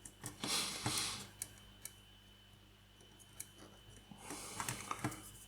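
Small plastic kit parts being handled and fitted on a work surface: clicks and light scraping in two short bursts, about half a second in and again about four seconds in, with a few single clicks between.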